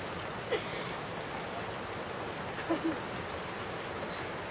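Steady rushing water noise, like rain or a running stream, with a couple of brief soft sounds about half a second in and near three seconds.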